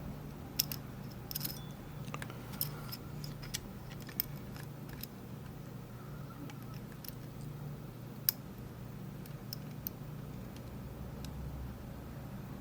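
Sparse small metallic clicks and light scraping of a lock pick raking and lifting the pins of a Rav Bariach LocXis pin-in-pin euro cylinder under tension, more frequent in the first few seconds, over a steady low hum.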